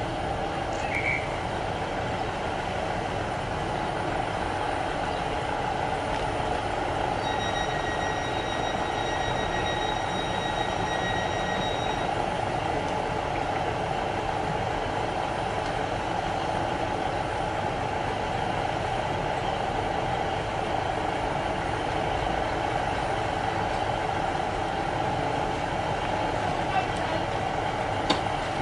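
Class 150 Sprinter diesel multiple unit standing with its underfloor diesel engines idling steadily. A steady high electronic tone sounds for about five seconds, starting some seven seconds in.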